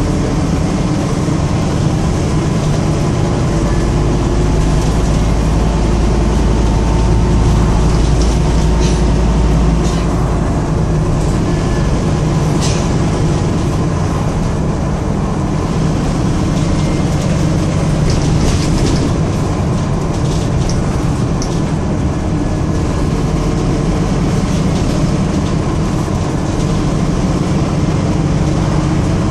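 Scania N230UD double-decker bus on the move, heard from the upper deck: the five-cylinder diesel's steady drone and road noise. The low engine note grows stronger from about three seconds in until about ten seconds in. Short rattles and clacks from the bodywork come now and then.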